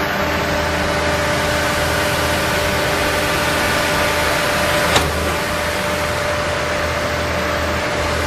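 An engine running steadily at one speed, with a single sharp click about five seconds in.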